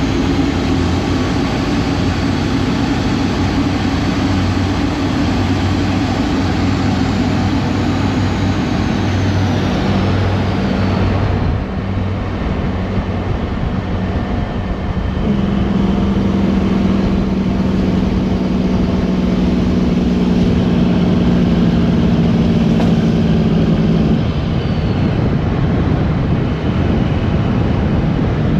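A vehicle engine runs steadily while driving. About halfway through the drone changes, and a stronger steady low hum holds for several seconds, then eases off.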